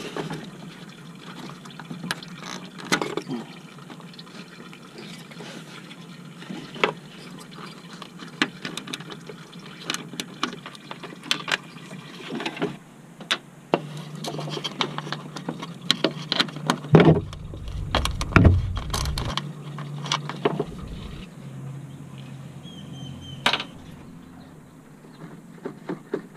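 Coolant running out of the radiator's drain petcock through a hose, a steady liquid trickling and filling sound, with scattered clicks and knocks of hands handling the plastic radiator and its fittings.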